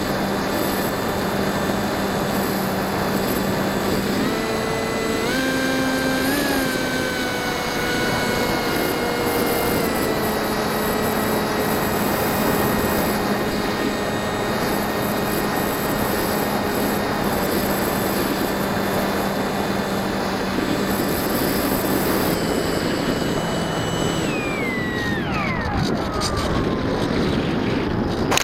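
Electric RC plane's brushless motor (NTM 2200kv) and propeller whining steadily in flight over wind rush, with a few small pitch changes from throttle. Near the end the pitch falls away steeply as the motor spins down; the uploader says the old 3S battery had given up just before landing.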